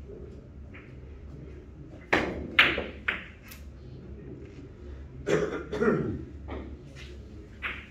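Carom billiard shot: the cue tip strikes the cue ball about two seconds in, followed by sharp clicks of balls hitting each other. More knocks come about five to six seconds in and near the end.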